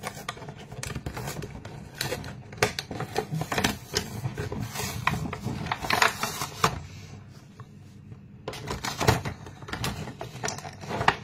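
Toy blister pack being torn open by hand: cardboard backing ripping and clear plastic crackling, in irregular bursts of crackles and snaps, with a brief quieter pause about seven seconds in.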